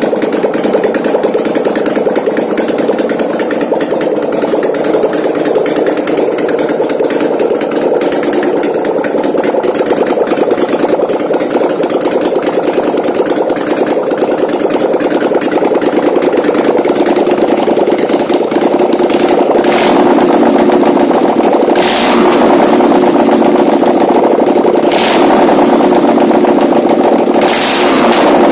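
800cc V-twin engine, converted from fuel injection to a Harley-Davidson carburettor, running steadily on a test run. It gets louder about twenty seconds in, with a few short louder bursts near the end.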